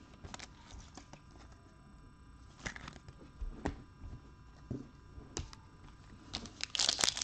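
A few light clicks and taps of cards and packs being handled, then near the end the loud crinkling and tearing of a foil trading-card pack wrapper being ripped open.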